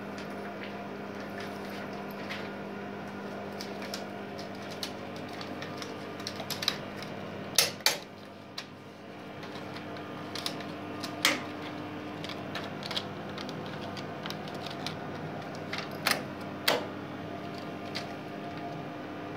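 Scattered clicks and knocks as film is loaded on a Prevost 35mm cinema projector and threaded through its mechanism by hand, with two sharp knocks close together about eight seconds in, over a steady hum.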